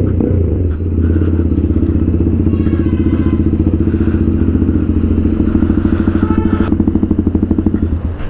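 TVS Apache RTR 200 4V's single-cylinder engine idling through an aftermarket full-system exhaust, a steady, pulsing exhaust note.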